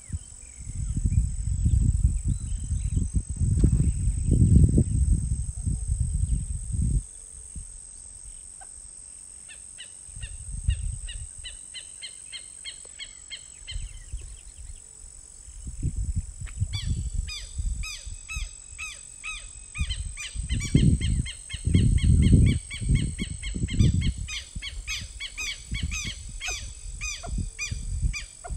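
Outdoor wildlife soundscape: a steady high insect whine, with long runs of rapid repeated bird chirps starting about a third of the way in. Irregular low rumbles are loudest in the first quarter and again a little past the middle.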